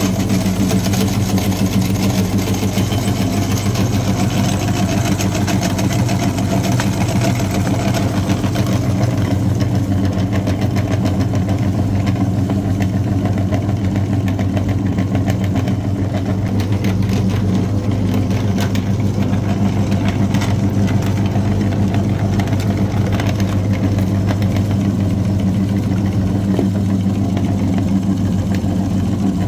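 Engine idling steadily, an even, unchanging hum.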